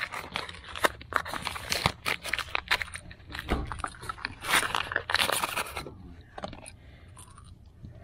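Metal parts of a unit ventilator's blower assembly being handled: irregular scraping, clicks and knocks, busy for about six seconds, then sparse and quieter.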